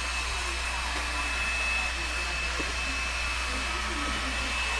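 Steady rushing noise, like a fan or blower running, with a thin high whine through it and faint voices low underneath.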